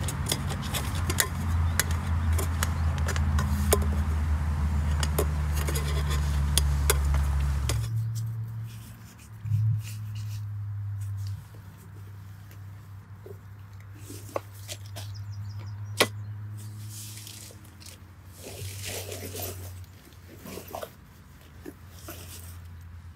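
Clicks and clatter of a folding metal camp table being set up, over a low rumble for about the first eight seconds. After that it is quieter, with scattered knocks and rustles as gear is set down.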